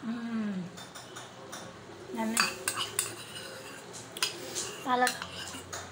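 Metal spoon clinking and scraping against a ceramic bowl as food is scooped up, in a string of irregular clicks, with a few short murmurs of voice between them.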